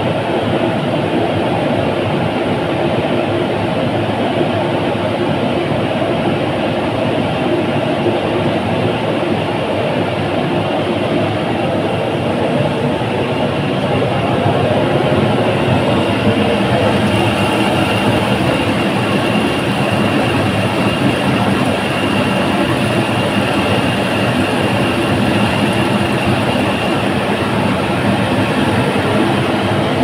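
Aluminium melting furnace running: a steady, loud rushing noise that doesn't let up, with a faint high whine joining it in the second half.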